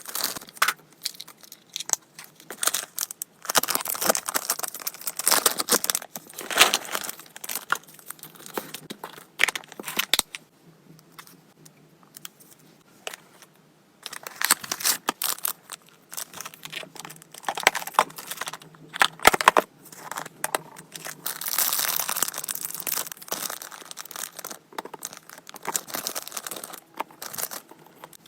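Packaging being handled and unwrapped by hand: irregular crinkling, rustling and tearing with small clicks, pausing for a few seconds about ten seconds in.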